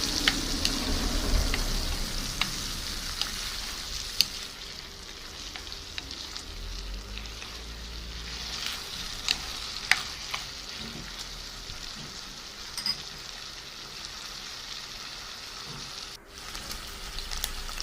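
Onion and bell pepper stir-frying in hot oil in a pan, a steady sizzle, with a few sharp clicks of the stirring spoon against the pan.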